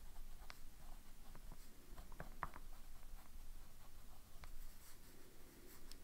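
Pilot E95S fountain pen's medium nib writing a few words by hand on paper: faint, short scratchy strokes, with a cluster of sharper ones about two seconds in.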